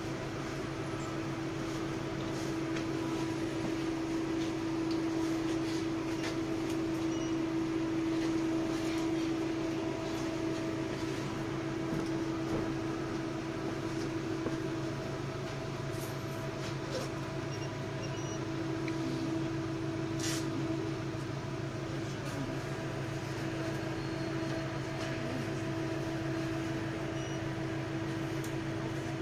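Inside a 71-619 tram moving at a crawl: a steady electrical hum with a held mid-pitched tone. There is one sharp click about twenty seconds in.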